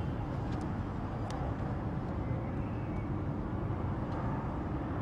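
Steady low rumble of outdoor background noise, with two faint clicks in the first second and a half.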